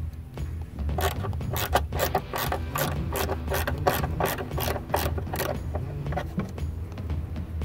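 Hand ratchet wrench clicking in a run of quick strokes, about two to four clicks a second, thinning out after about five seconds.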